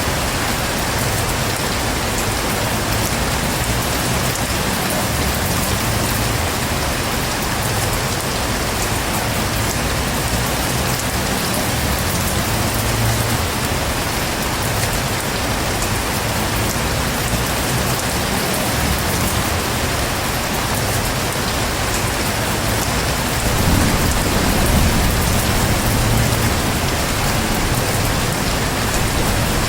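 Heavy rain pouring steadily, a dense even hiss of downpour. About three-quarters of the way in, a low thunder rumble swells up under it.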